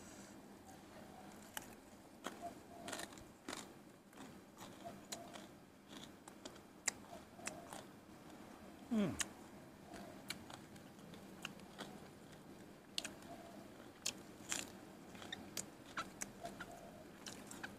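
Close-up mouth sounds of a person chewing spicy rice-noodle salad, with many small wet clicks and crunches. About halfway through a short sound slides down in pitch, the loudest moment.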